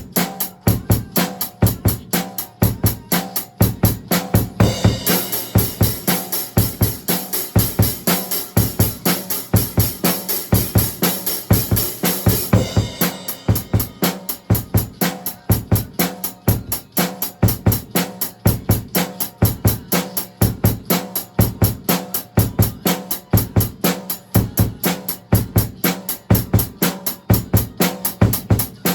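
Acoustic drum kit played live: a steady kick-and-snare groove with cymbals keeping time, at 85% of the song's original tempo. A sustained crash-cymbal wash rings over the beat from about 5 to 12 seconds in.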